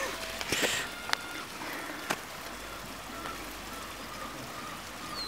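Garden ambience: a steady light hiss with a short rustle near the start, two sharp clicks in the first two seconds, and faint bird chirps in the background.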